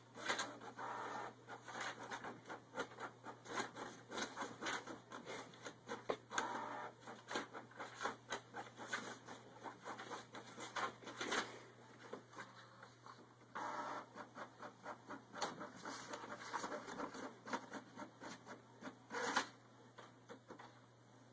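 Canon inkjet all-in-one printer running, its print head and paper feed working in short bursts with many clicks, over a low steady hum. Paper sheets rustle as a cat paws at them in the output tray.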